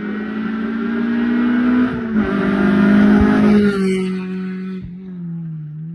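Rally car engine at high revs, getting louder as it climbs toward the listener. It is loudest about three seconds in, then drops in pitch and fades as the car passes close and pulls away.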